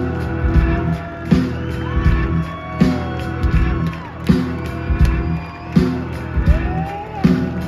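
A live rock band playing a slow blues, with long bending lead notes over bass and a heavy drum beat. A drum hit lands about every second and a half.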